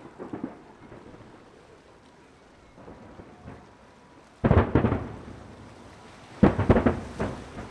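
Aerial firework shells bursting: a few faint pops in the first second, then a loud cluster of booms about four and a half seconds in and another about six and a half seconds in.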